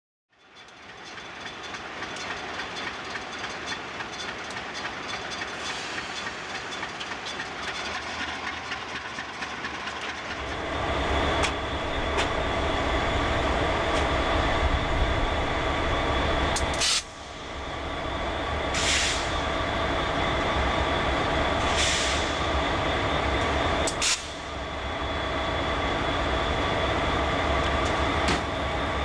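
Freight train running past: a steady rumble and rolling wheel noise that fades in, then grows clearly louder with a deep rumble about ten seconds in as the locomotives draw near. The sound cuts out briefly twice later on, and two short hisses come between the cuts.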